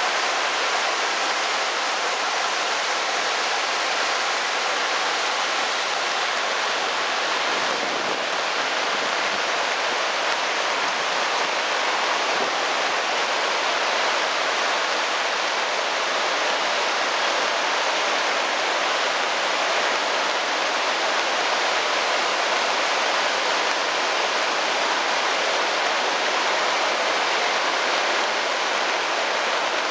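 Brown floodwater rushing in a fast, churning torrent and pouring over low walls, a steady, loud roar of water with no breaks.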